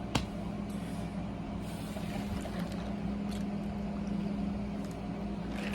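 Room air conditioner running with a steady hum and even whoosh, with one short click just after the start.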